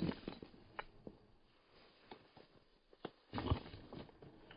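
Footsteps on a stony gravel mountain path: irregular scuffs and crunches of boots on loose stones and rock, with a louder crunch about three and a half seconds in.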